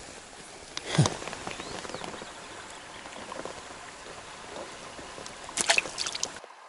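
River water running steadily, with handling noises as a caught perch is unhooked and held: a sharp knock about a second in and a quick cluster of knocks and clicks near the end.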